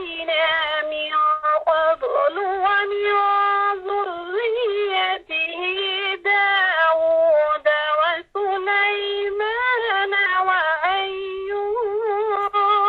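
A woman chanting Quranic verses in Arabic in melodic tajwid style, holding long drawn-out notes with ornamented turns of pitch and pausing briefly for breath twice.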